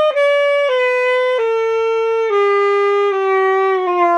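Saxophone playing a slow descending scale from high C toward middle C, stepping down one sustained note about every three quarters of a second. It is played to check the instrument's notes, and the player finds the D weird.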